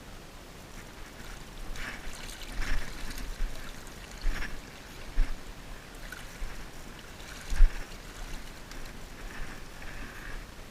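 Water splashing and sloshing in irregular bursts, with low thumps on the microphone; the loudest comes a little past the middle.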